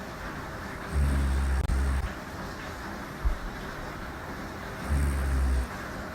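A woman snoring: two low-pitched snores, the first about a second in and lasting about a second, the second near the end and shorter, over a steady background hiss. A short knock falls between them.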